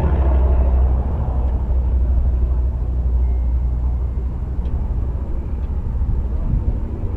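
A car's engine and exhaust rumbling low and steady, the sound gradually fading.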